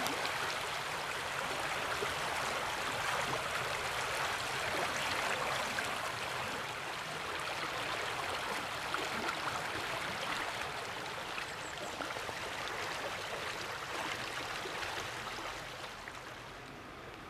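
Water rushing over river rapids, a steady hiss that eases a little near the end.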